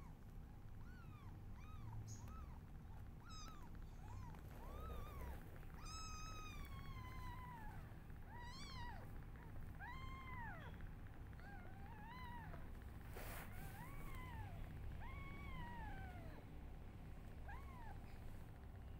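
Newborn kittens mewing over and over: thin, high calls that arch up and down in pitch, a few drawn out and falling, coming one after another about every second.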